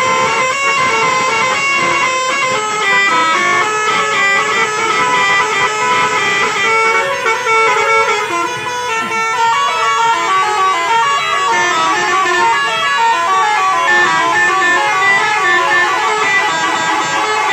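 Tour buses' basuri telolet horns, multi-tone air horns playing quick, overlapping tunes of stepping notes without a break.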